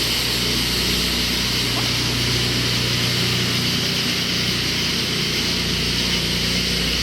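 Steady noise with no bangs: a constant low hum, like an engine running, under an even high-pitched hiss.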